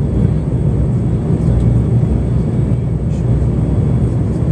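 Strong wind blowing across the microphone: a loud, steady low rumble.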